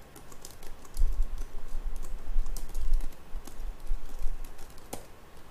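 Typing on a computer keyboard: a quick run of key clicks, with a low rumble underneath from about a second in.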